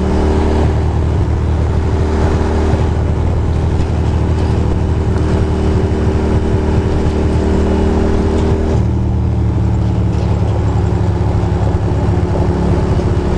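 Ducati Monster's V-twin engine running steadily while riding, over a rush of wind and road noise. The engine note changes about nine seconds in.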